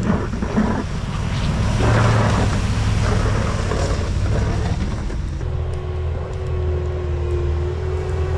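A snowplow pickup truck runs past pushing heavy wet snow, its engine and the noise of the blade and tyres through slush heard together. About five seconds in this gives way to a skid steer's engine running steadily under load with a thin steady whine as it pushes snow.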